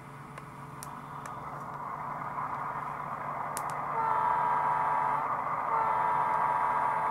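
Diesel switcher engine sound from a model locomotive's DCC sound decoder, just switched on: the engine rumble builds up over the first few seconds and then runs steadily. A whining tone comes in about four seconds in, breaks briefly and returns.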